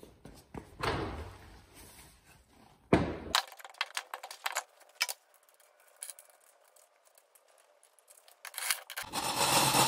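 A mower wheel being fitted onto its hub: a thump, a sharp knock, then a run of light metal clinks from the lug nuts and studs. Near the end a cordless drill with a socket starts up and runs steadily, driving a lug nut onto the wheel.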